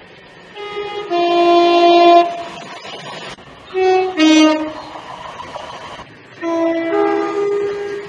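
Passenger train's two-tone horn sounded three times. First a long high-then-low blast, then a short high-low toot about two seconds later, then a low-then-high blast near the end.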